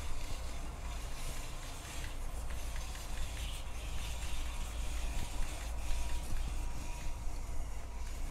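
Ceiling pulley bike hoist being hauled up by hand, lifting a folding bicycle: the cord runs through the pulleys and cord lock with light rubbing and scattered faint clicks, over a steady low background hum.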